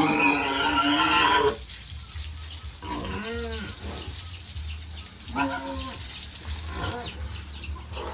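Farm animals calling: a long, loud pitched call at the start, then three shorter calls a couple of seconds apart.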